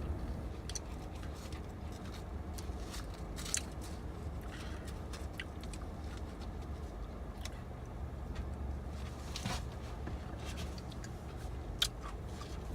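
Steady low rumble of a car heard from inside the cabin, with scattered small clicks and taps over it.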